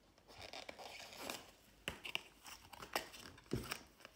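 Cardboard box being handled and opened by hand: faint scattered rustling of cardboard and paper, broken by several sharp clicks and taps in the second half.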